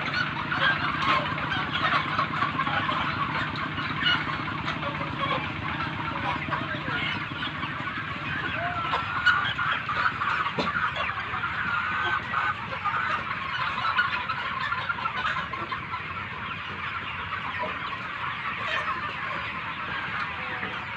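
A flock of chickens clucking and chirping together in a dense, continuous chatter. A low steady hum runs underneath and fades out about two-thirds of the way through.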